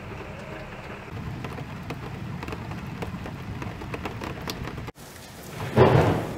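Heavy rain falling steadily onto a flooded street and roofs, then a loud rumble of thunder near the end.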